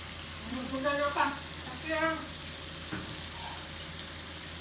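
Food frying in a pan with a steady sizzle while being stirred. Two short pitched sounds come about one and two seconds in, and a single knock about three seconds in.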